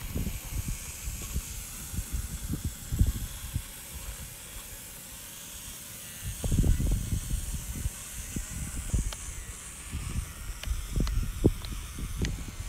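Wind buffeting the microphone in uneven low gusts over a steady high hiss, with a few sharp small clicks, like tyres crunching twigs, in the second half as a small RC crawler truck moves slowly over mud.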